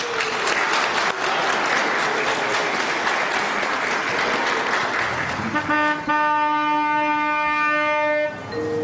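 Wedding guests applauding. About five and a half seconds in, music comes in with a steady held chord that stops shortly before the end, when a new note starts.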